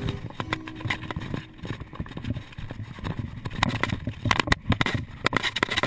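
Mountain bike clattering over a rough, dry dirt trail: a fast, irregular run of clicks and knocks from the bike jolting over the ground, over tyre and wind noise.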